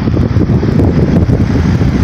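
Newly installed 3-ton Ruud split-system heat pump outdoor unit running just after start-up. Its condenser fan blows air up past the microphone as a loud, steady, rumbling rush of wind noise.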